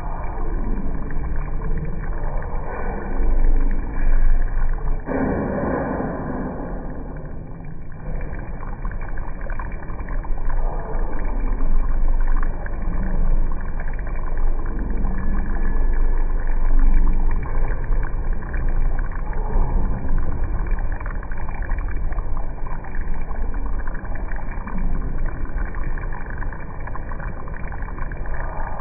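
Ramen broth boiling hard in a hot stone pot, a steady, irregular bubbling.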